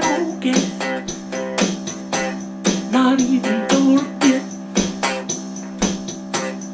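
Background music: plucked guitar notes over a bass line, in a steady run of notes.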